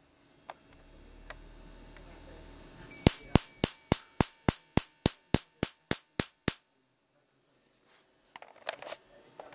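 Homemade Marx generator firing: a rapid, even run of sharp spark cracks, about four a second, for about three and a half seconds. A faint low hum comes before them, and a few loose clicks come near the end.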